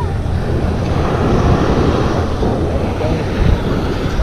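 Ocean surf washing onto the beach, with wind buffeting the microphone in a steady low rumble.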